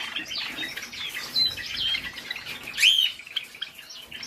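A flock of Java sparrows chirping: a steady patter of short, high chip notes, with one louder arching call about three seconds in.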